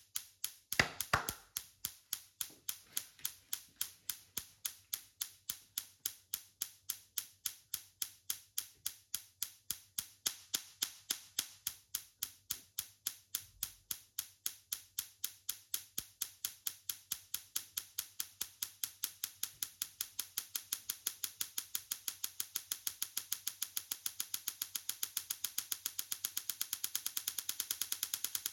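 Tesla coil sparking: a steady train of sharp snapping clicks, about four a second, quickening near the end. The two loudest snaps come about a second in.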